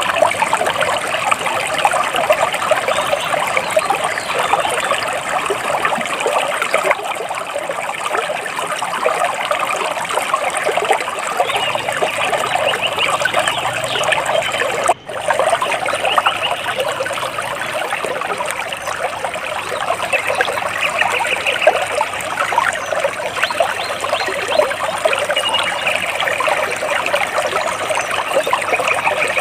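Water trickling and splashing steadily, like a small stream running over rocks, with faint bird calls now and then. Halfway through the sound drops out for an instant.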